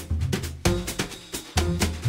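Background music with a drum kit and bass playing a steady beat.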